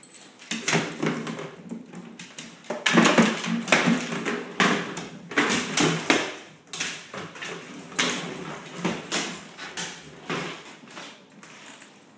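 Weimaraner playing with a hard plastic toy ball on a hardwood floor: the ball knocks and rolls across the boards among the clicking and scrabbling of the dog's claws, in spells with short pauses. The activity dies down near the end.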